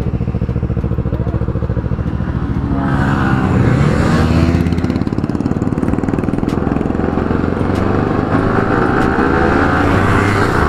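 Yamaha R15's single-cylinder engine running at a crawl, then revved hard from about three seconds in as the bike accelerates, its pitch climbing through the gears, with a second sport bike's engine pulling away alongside.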